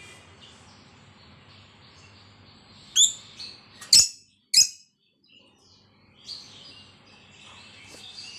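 Caged lovebirds calling: three short, sharp, high chirps about three seconds in, then softer chattering near the end.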